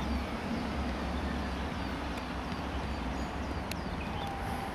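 Outdoor ambience around a football pitch: a steady low rumble with faint, repeated high chirps and a sharp click or two a little after three and a half seconds in.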